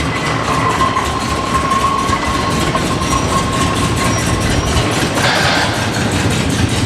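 Old car engine running loud and rough with an uneven clatter. A thin steady whine sits over it from about half a second in until about four seconds.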